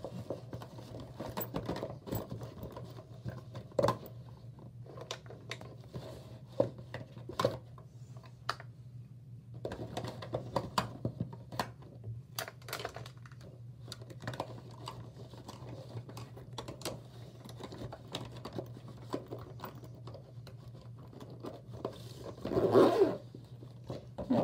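Makeup items and a makeup bag being handled: scattered small clicks, taps and rustles, with a louder rustle near the end. A steady low hum runs underneath.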